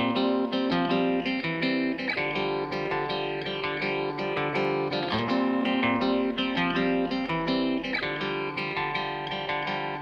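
Background music: an upbeat guitar track with plucked and strummed chords.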